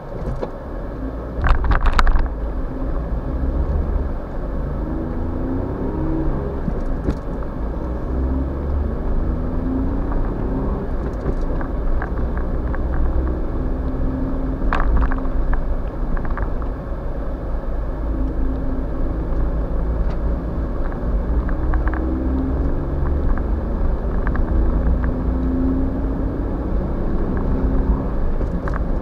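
Suzuki Every kei van driving on a snow-covered road, heard from inside the cab: a steady low rumble of engine and tyres, with the engine note rising and falling. A few sharp clicks come through, the loudest about two seconds in.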